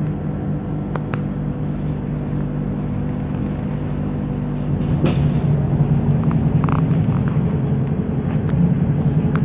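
Inside a ZiU-682G-012 trolleybus: a steady low hum while it stands at a stop, with a few clicks, growing louder about halfway through as the trolleybus moves off.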